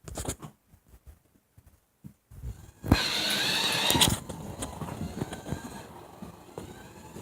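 Toy RC car driving: a loud burst of electric-motor whine and rolling noise lasting about a second, a few seconds in, then quieter running with scattered light knocks and clatter.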